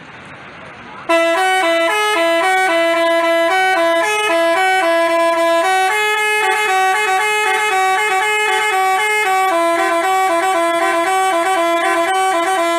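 Telolet basuri musical horn, the multi-tone electric horn fitted to Indonesian buses, playing a fast melody of stepping notes. It starts about a second in and plays on without a break.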